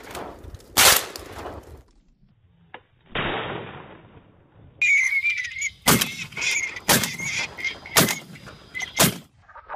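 Shotgun shots fired at flying ducks: one about a second in, then a run of four shots about a second apart later on, over a thin high whistling tone.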